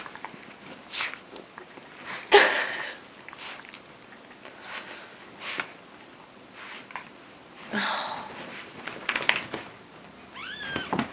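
Dogs sniffing and snuffling at close range during rough play, with scattered short noisy bursts and scuffles and a sharp knock a couple of seconds in. A brief high rising cry comes near the end.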